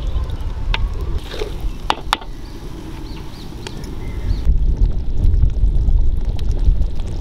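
Wind buffeting the microphone as a steady low rumble, with a few sharp clinks of a ladle against an aluminium cooking pan about one and two seconds in.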